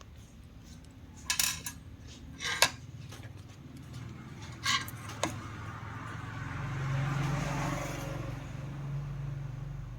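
Sharp metallic clinks, four or so, of small metal parts or tools being handled, over a steady low hum that starts at the outset; a hiss swells and fades in the second half.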